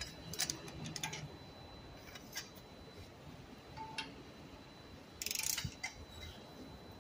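Bi-hexagon socket and long extension clinking against the cylinder head bolts as they are moved and fitted from bolt to bolt: scattered light metallic clicks and knocks, with a short rattle about five seconds in.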